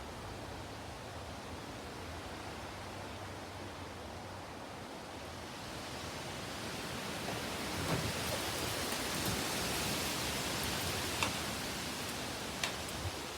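Wind gusting through trees with leaves rustling. The gust builds from about halfway through and then eases, with a few faint light ticks near the end.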